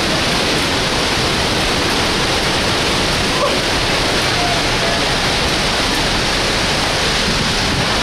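Waterfall close by: a loud, steady rush of falling water.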